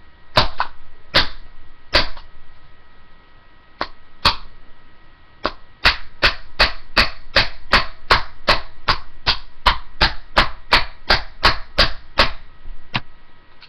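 Hammer blows on a Dell computer mouse's plastic casing: a few scattered strikes, then a quick, even run of about three blows a second lasting several seconds, as the mouse is smashed open.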